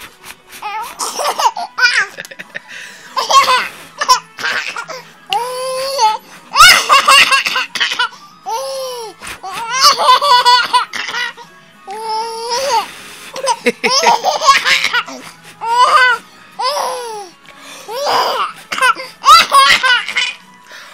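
Baby giggling and squealing with laughter in repeated short high-pitched bursts, each a second or two long with brief pauses between.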